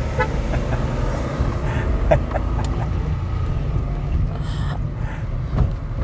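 Steady low rumble of engine and tyre noise inside the cabin of a car driving on a tarred road, with a few faint ticks.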